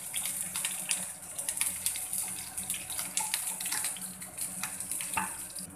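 Sliced shallots sizzling in hot coconut oil with mustard seeds, a steady hiss dotted with fine crackles as they fry. The sizzle cuts off suddenly near the end.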